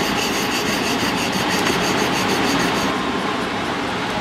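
A steel seal-carving knife scratching into a soft stone seal in rapid, regular strokes, about six a second, which stop about three seconds in.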